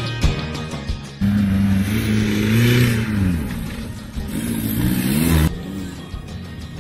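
An off-road 4x4's engine revving over background music. It cuts in suddenly about a second in, climbs and falls in pitch, dips briefly, then revs up again before cutting off abruptly about a second before the end.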